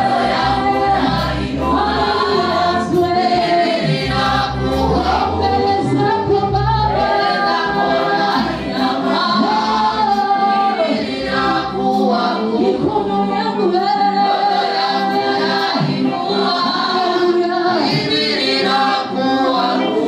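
A choir singing a gospel song, continuous and loud.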